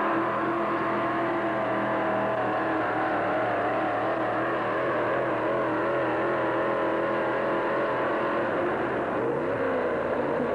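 Modified pulling tractor's engine idling loudly with an uneven, wavering note. It gives one quick rev, rising and falling, about nine seconds in.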